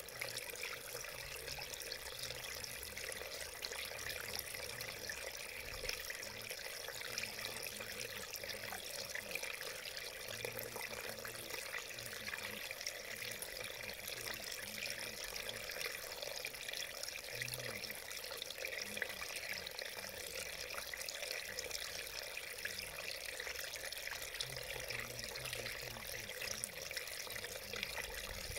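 Small shallow mountain stream running over rocks, a steady splashing trickle of water.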